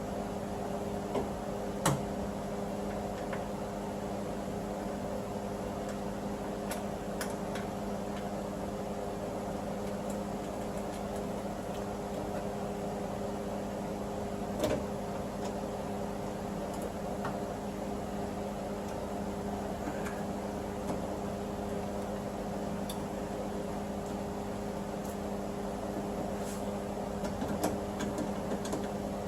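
A steady machine hum with a few scattered sharp clicks and knocks, the loudest about two seconds in, another about halfway and several close together near the end.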